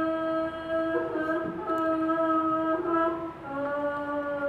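A woman's voice singing long held notes at a steady pitch, with a second voice joining briefly about a second in, then moving to a slightly lower held note near the end.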